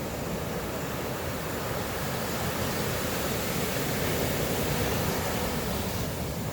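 Sea surf washing onto a sandy beach, heard as a continuous, even rushing noise.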